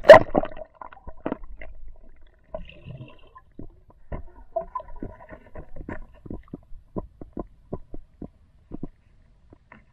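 A splash as the diver and camera go under the river surface, then muffled underwater sound: a low rumble with a run of short clicks and knocks, a few a second, as the spearfisher swims along the bottom.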